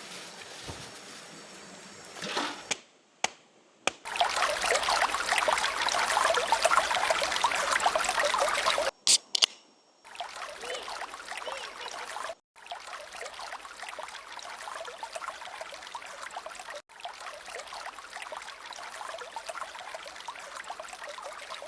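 River water flowing and splashing, in several short segments joined by sudden cuts, loudest and closest for a few seconds from about four seconds in.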